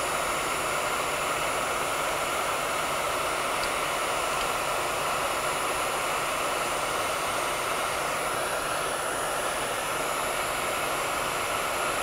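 Heat gun running steadily, its fan blowing a constant rush of hot air to shrink clear heat-shrink tubing over a BNC connector's crimp.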